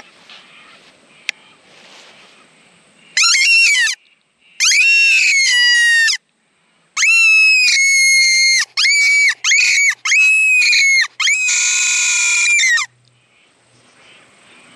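Hand-held fox whistle blown in a series of seven loud squeals, each falling slightly in pitch, with short breaks between: a prey-in-distress call to draw a fox in.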